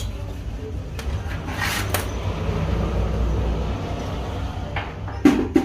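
A steady low, engine-like rumble with a few light clicks, and a louder metallic knock and short clatter near the end.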